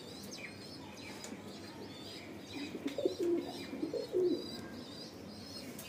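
Domestic pigeons cooing a few times about halfway through, over steady, repeated high chirping from small birds.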